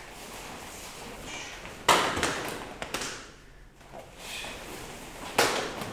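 Sharp thuds and slaps from karate students moving through a kata on the dojo floor: bare feet stepping and stamping and uniforms snapping on techniques. The loudest comes about two seconds in, followed by two smaller ones, and another strong one comes near the end.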